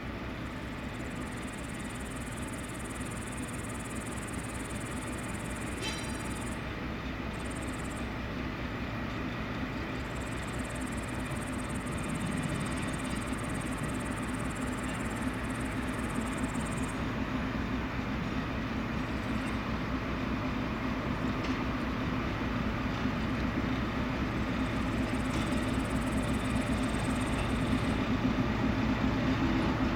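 TGM4 diesel-hydraulic shunting locomotive running slowly along the track toward the listener, its engine rumble growing steadily louder. A short click about six seconds in.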